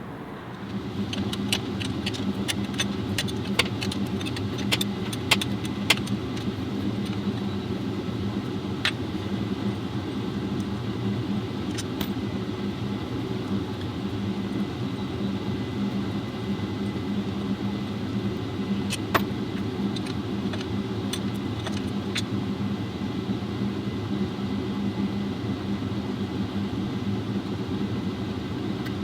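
A steady low mechanical hum, with scattered sharp clicks and light metallic clinks that are most frequent in the first several seconds.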